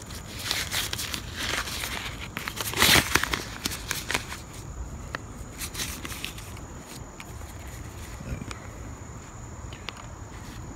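Rustling and crinkling of the practice net's nylon fabric sleeves and netting being handled, busiest in the first four seconds with a louder crackle a little before three seconds in, then a few light clicks.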